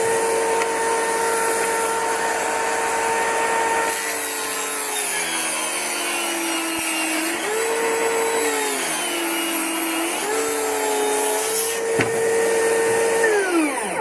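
Table saw running and ripping wood cleating strips: the motor's steady whine dips in pitch twice as the blade bites into the wood and recovers between cuts, then the blade winds down near the end.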